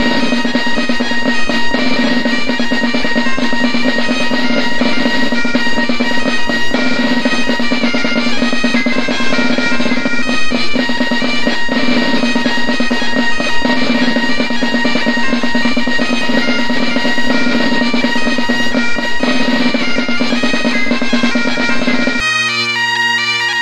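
Bagpipes playing a tune over a steady drone, with drum accompaniment; the drums drop out near the end, leaving the pipes alone.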